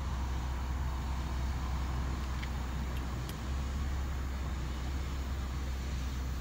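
Steady low rumble of a diesel freight locomotive still some way off, approaching. A few faint high clicks come about halfway through.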